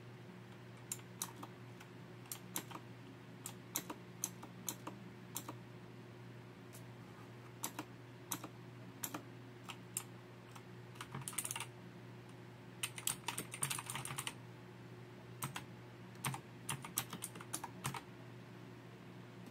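Typing on a G61 mechanical keyboard: scattered single keystrokes and short runs of fast typing, each key a sharp click, with the densest runs in the second half.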